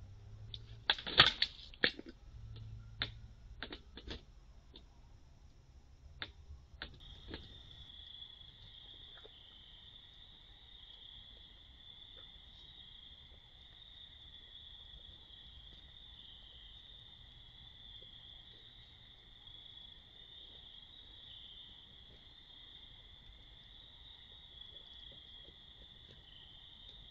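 Crickets chirring steadily at night in two high pitches, over faint scattered crunching of raccoons eating dry kibble. Before the chorus starts, several sharp clicks and knocks, the loudest about a second in.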